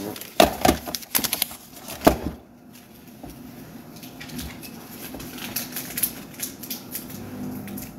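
Handling noise from papers and small objects being handled: a few sharp clicks and knocks in the first two seconds, then soft rustling with faint scattered ticks.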